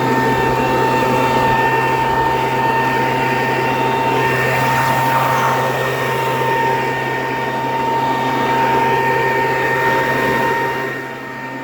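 Backpack leaf blower running steadily: a rush of air over a constant low hum and a steady whine, easing off slightly near the end.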